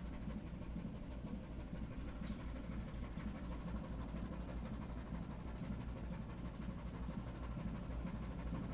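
Steady low drone of a ship's engine heard on board, with a faint short higher sound about two seconds in.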